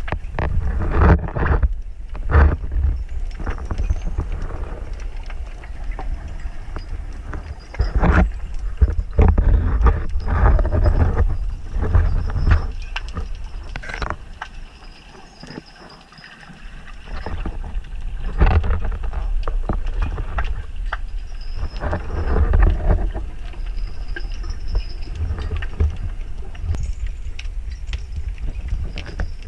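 Underwater sound through a camera's waterproof housing while the diver swims: a low, muffled rumble of water moving past that swells and fades, with scattered clicks and crackles. It drops away briefly about halfway through.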